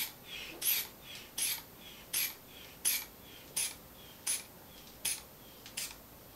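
The rubber inflation bulb of a manual blood pressure cuff is squeezed over and over, pumping the cuff up toward 130 mmHg. Each squeeze gives a short hiss of air through the bulb's valve, about nine in all, one every 0.7 seconds.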